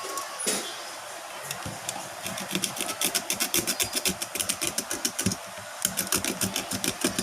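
A hand tool scraping old display adhesive off a phone's frame: a fast run of short scraping strokes, several a second, starting about two and a half seconds in.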